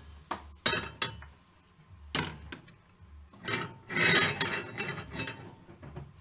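Cookware handled on a gas stove: a metal bowl and a cast-iron pan clink and knock against the burner grate. There are several sharp knocks in the first couple of seconds, then a longer scrape as the pan is set down about four seconds in.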